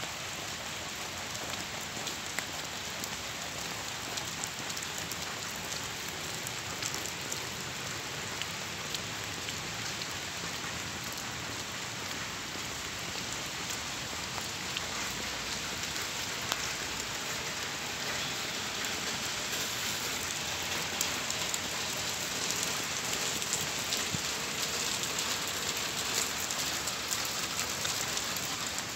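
Steady rain falling on wet street pavement and puddles, with many small drop ticks close by; it gets a little heavier about two-thirds of the way through.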